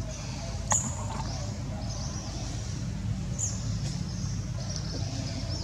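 Repeated short, high-pitched squeaking calls from a small animal, over a steady low background rumble, with two sharp clicks, one just under a second in and one about three and a half seconds in.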